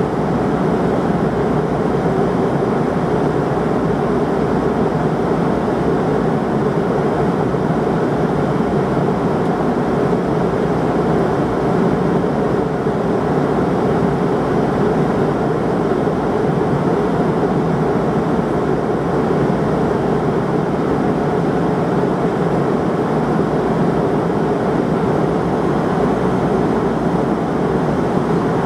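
Cabin noise of a McDonnell Douglas MD-88 airliner in cruise: a steady, even rush of airflow and its rear-mounted turbofan engines, with no changes or sudden sounds.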